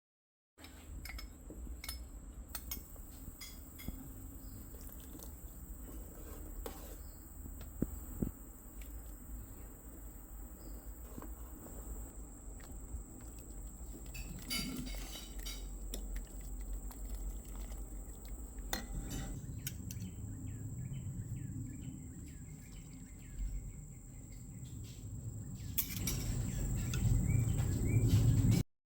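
Kitchen work sounds: scattered clinks and knocks of utensils against cookware over a steady low rumble and a faint high whine. The rumble grows louder in the last few seconds, then cuts off suddenly.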